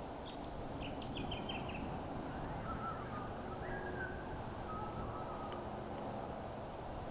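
Birds calling in bushland: a quick run of short, high chirps in the first two seconds, then a few lower whistled notes, over a steady outdoor background hiss.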